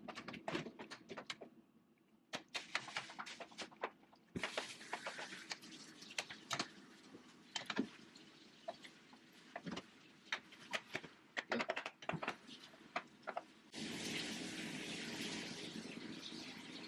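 Scattered clicks and knocks of kitchen utensils against cookware, over a steady hiss that grows louder about fourteen seconds in.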